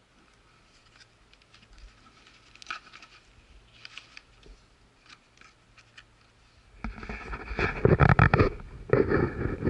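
Handling noises: faint clicks and scrapes as a hand-held multimeter is turned over, then, about seven seconds in, loud rustling and rubbing that lasts to the end.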